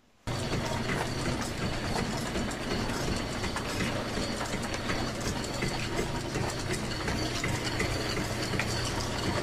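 Belt-driven line shaft of an early-1900s-style machine shop running: a steady mechanical clatter of belts and pulleys with many small clicks over a low hum, starting abruptly just after the beginning.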